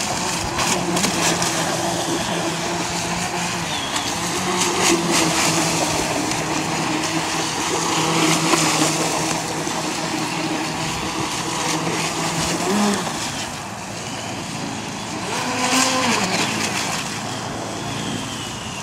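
Twin Fightercat 3126 1600kv brushless outrunner motors of an RC catamaran speed boat whining at speed, with the hiss of spray from the hull as it circles on the water. The motor pitch shifts and the sound drops back briefly about two-thirds of the way through before picking up again.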